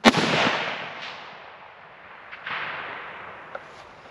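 A single rifle shot from a Ruger SFAR semi-automatic .308 rifle, a sharp crack that rings out and dies away over about a second. A second, softer boom follows about two and a half seconds in.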